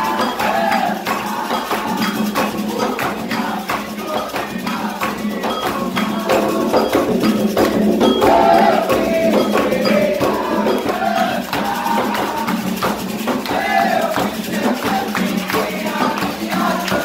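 Umbanda ritual chant (ponto) sung by a group to a steady beat of hand clapping and percussion; the chant calls the Marinheiros, the sailor spirits.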